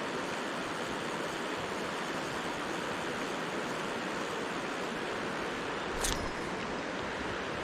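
Mountain stream rushing steadily, an even hiss of flowing water, with one short sharp click about six seconds in.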